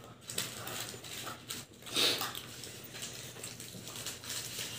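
People eating fast food at a table: paper wrappers rustling, chewing and sipping through straws, with a short louder burst about two seconds in, over a low steady hum.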